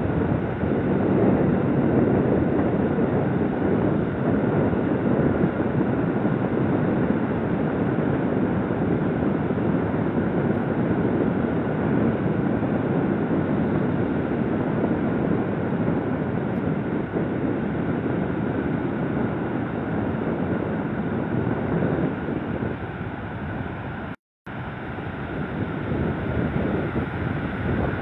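Strong wind buffeting the microphone, a steady loud rushing noise, with surf breaking on the beach underneath. The sound cuts out completely for a moment about 24 seconds in.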